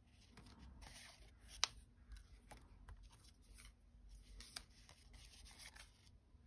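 Faint rustling and light clicks of die-cut cardstock ephemera pieces being handled and shuffled, with one sharper click about one and a half seconds in.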